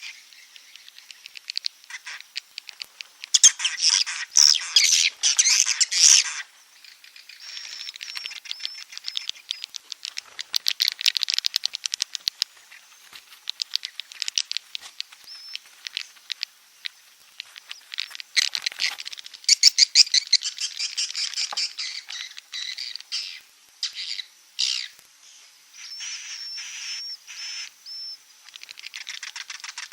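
Edible-nest swiftlet calls, a recorded lure call for swiftlet houses: rapid trains of dry clicks and twittering chirps in bursts of a few seconds, with short thin level chirps between them.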